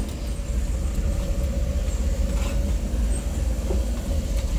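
Goods tempo's engine and drivetrain running, heard from inside the cab while it drives slowly over a rough unpaved road: a steady low rumble with a faint steady whine.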